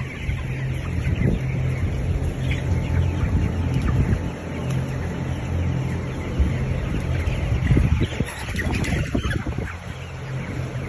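A large flock of broiler chickens clucking and chirping, many birds calling at once, over a steady low hum. The sound gets louder and rougher about eight seconds in.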